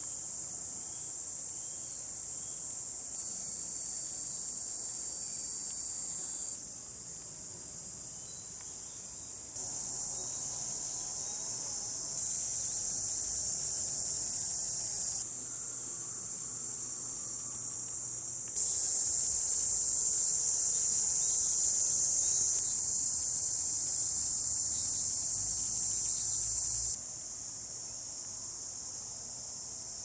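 Cicadas singing in a continuous high-pitched drone, its loudness jumping up or down in steps every few seconds.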